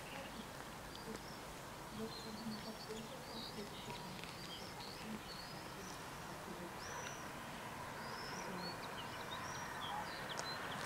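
Small birds chirping, many short high calls scattered throughout, over a steady outdoor background hiss that grows slightly louder over the last few seconds.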